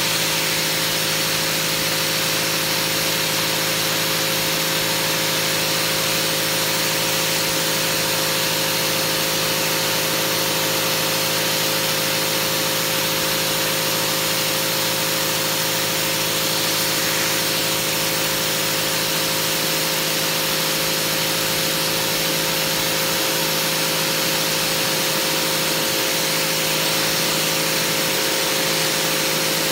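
SunJoe electric pressure washer running steadily, its motor and pump humming under the hiss of a 15-degree water jet blasting grime off a concrete sidewalk from a few inches away.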